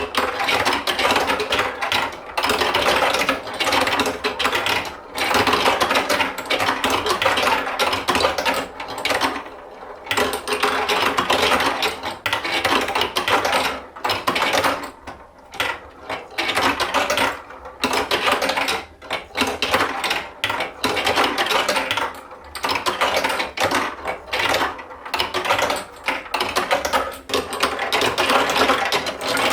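Marbles rolling and clattering along a plastic marble-run track, mixed with the rattle of the toy's mechanism. The sound comes and goes with brief lulls.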